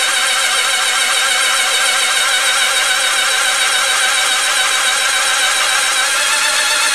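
Electric starter motor cranking a 1973 Honda CB750's inline-four engine over without it firing, a steady whir. The cranking pumps oil through the engine for an oil pressure test, since no ignition system or carburetors are fitted yet.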